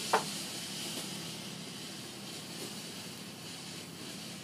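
Ground fountain firework spraying sparks with a steady hiss, with one sharp pop just after the start.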